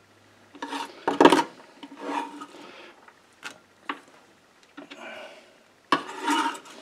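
Chef's knife blade scraping diced red onion across a wooden cutting board and into a glass bowl: several short scrapes, the loudest about a second in and another near the end, with light taps of the blade between.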